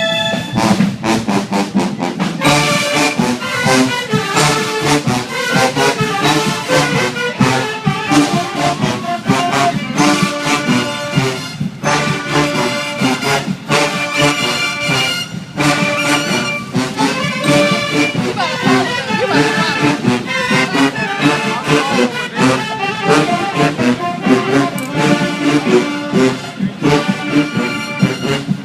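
Marching band playing: brass horns carry the tune over steadily beating drums.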